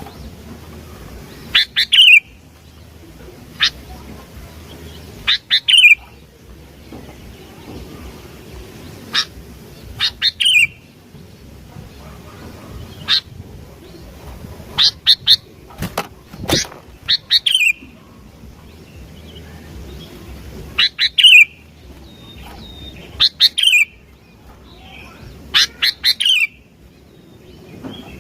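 Sooty-headed bulbul (kutilang) singing: short, loud, sharp whistled phrases of a few quick notes, repeated about a dozen times at intervals of one to four seconds.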